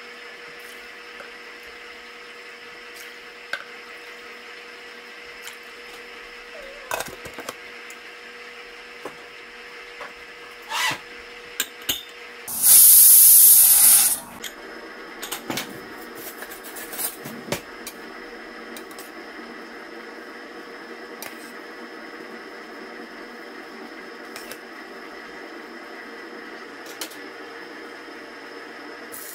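Stovetop pressure cooker whistling: steam hisses loudly out under the weighted whistle for nearly two seconds once the cooker reaches pressure. Before and after, a steady hum and a few light clicks and knocks.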